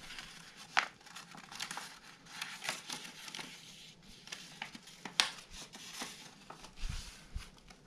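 Construction paper rustling and crinkling as it is folded in half and creased down by hand, with sharp crackles, the loudest about a second in and about five seconds in.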